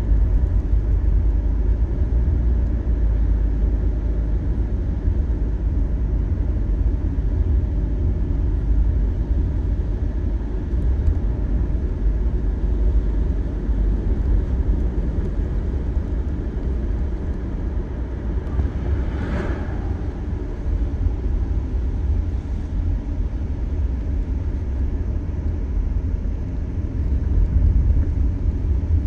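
Car travelling at highway speed: a steady low rumble of tyres on the road and the engine, with a brief hiss that rises and fades about two-thirds of the way through.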